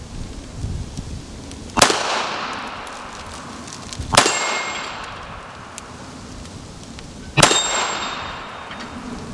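Three shots from a .380 ACP Smith & Wesson M&P Shield EZ pistol, about two to three seconds apart, firing 94-grain steel-case full metal jacket rounds at steel plates. The last two shots are followed by a clear metallic ring from a struck steel plate.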